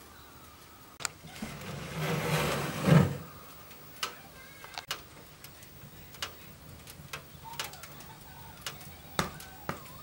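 Metal oven door of a wood-burning cook stove being unlatched with a click about a second in, then swung open with a scraping clatter that ends in a heavy clunk about three seconds in. Light scattered clicks follow.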